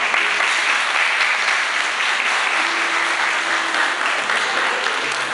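An audience applauding: many hands clapping at once in a dense, steady patter.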